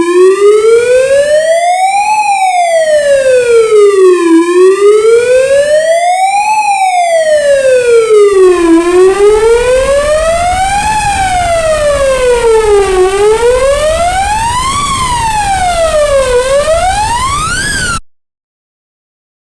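Police siren on its wail setting, sweeping slowly up and down in pitch, each rise and fall taking about four seconds. From about eight seconds in a low rumble runs beneath it; near the end the sweeps quicken and climb higher, then the siren cuts off suddenly.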